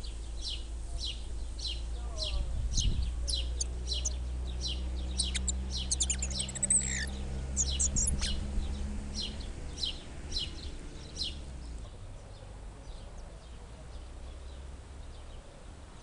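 Spotted flycatchers calling at the nest: thin, high calls repeated about twice a second, crowding into a rapid run of higher calls between about five and eight seconds in while an adult is at the nest with the young, then stopping about eleven seconds in. A steady low hum runs underneath until about twelve seconds in.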